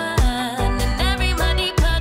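Background song: a singer's voice with wavering vibrato over a steady bass line and drum beat.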